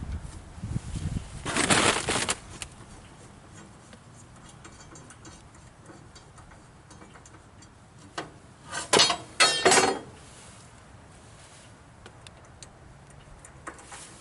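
Metal clinking and scraping from hands working the blade-tension gear and blade guards of a Frontier OS23 portable band sawmill, with one loud scrape about two seconds in and a quick cluster of rattling clanks around nine seconds in.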